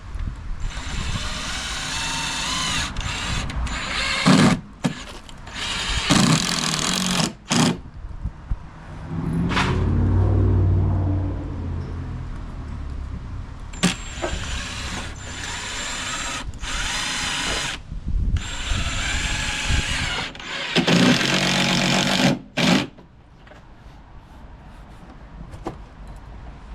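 Power drill running in about five bursts of one to four seconds each, driving screws into deck boards, with a lower rumble around ten seconds in.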